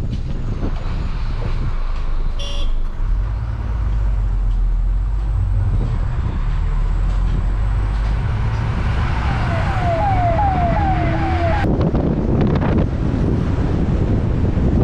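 Bus engine running and road noise heard from on board a moving bus, with a vehicle horn sounding a quick run of about five sliding notes about nine seconds in.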